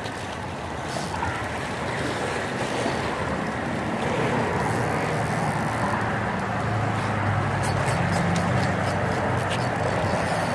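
Steady wind and lapping-water noise, joined about six seconds in by the low, steady drone of an engine, with a few faint clicks near the end.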